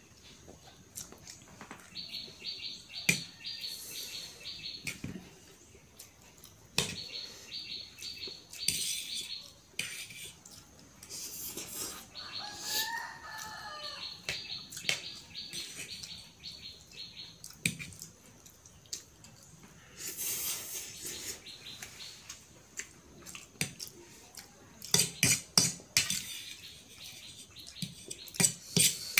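Metal fork clicking and scraping against a ceramic plate while noodles are eaten, with chewing between strokes; the sharpest clinks come in a quick cluster near the end. A rooster crows once in the background about midway.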